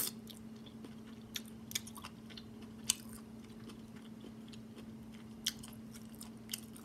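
A person chewing seafood close to the microphone, with a few sharp wet mouth clicks and smacks. A steady low hum runs underneath.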